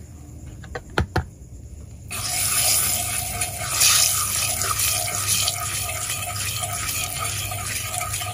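Curry powder frying in hot oil in a pot on a gas stove, the Jamaican step of 'burning' the curry before the meat goes in. There are two sharp clicks about a second in, then a loud, steady sizzle starts suddenly about two seconds in as a spoon stirs the curry through the oil.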